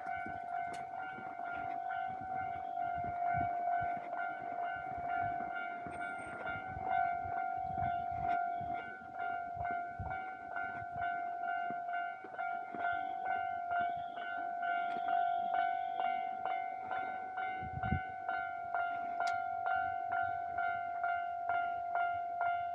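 Japanese railway level-crossing warning bell ringing steadily at about one and a half strokes a second. Through the first half a Keisei Line train runs over the crossing, its wheels clattering on the rails, and a single low thump comes near the end.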